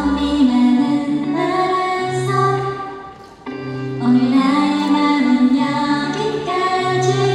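A woman singing a slow Korean ballad live into a microphone over musical accompaniment with repeating low notes, recorded in the hall. The music thins out briefly about three seconds in, then comes back in.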